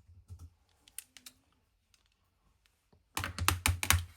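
Handling noises: a few scattered light clicks, then a quick run of louder clicks and knocks about three seconds in.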